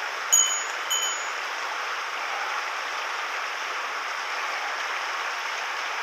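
Shallow mountain stream running over a cobble bed, a steady rush of water. Near the start, two short high metallic rings sound over it, about half a second apart.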